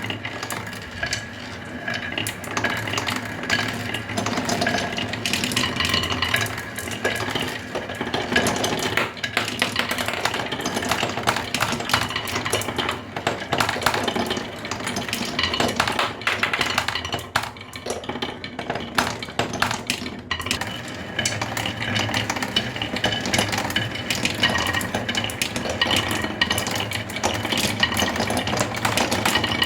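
Radio-controlled model construction vehicles at work: continuous clatter of hard parts knocking and scraping over a steady mechanical hum.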